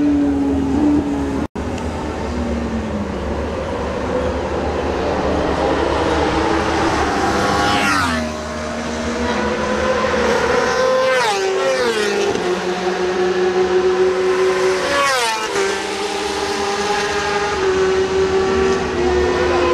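Racing engines at high revs running along a straight. Three close passes, about 8, 11 and 15 seconds in, each with the engine note dropping sharply in pitch as the vehicle goes by.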